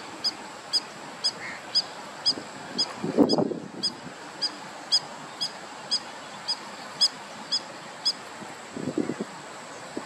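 A bird repeating a short, high note steadily, about twice a second, over wetland background. There are brief low rumbles about three seconds in and near the end.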